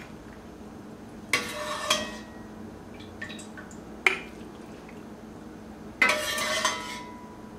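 Metal ladle scraping and clinking against an enamelled pot and a glass jar while chipotles in syrup are ladled into the jar. There are three bursts of clatter: one about a second and a half in, a single sharp clink about four seconds in, and a longer scrape near six seconds.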